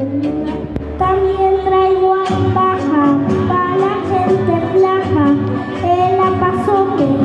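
A young boy singing into a hand-held microphone over instrumental accompaniment, his voice amplified and holding and bending sung notes.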